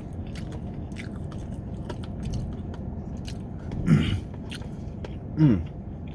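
Close-up chewing of food with frequent small wet mouth clicks. Twice, about four and five and a half seconds in, a short hum from the eater that falls in pitch; these are the loudest sounds.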